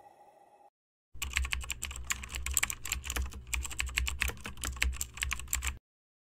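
Computer keyboard typing sound effect: rapid, irregular key clicks starting about a second in and running for nearly five seconds before cutting off abruptly, laid over text being typed out on screen.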